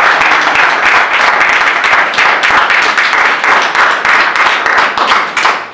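Audience applauding, a dense patter of many hands clapping that cuts off just before the end.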